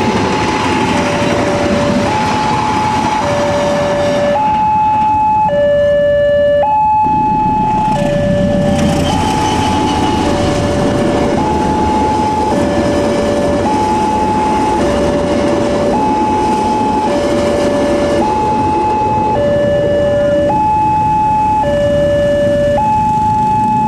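Railway level-crossing warning alarm sounding a two-tone ding-dong, alternating high and low notes of about a second each, repeating without a break. Underneath is the rumble of a passenger train passing over the crossing.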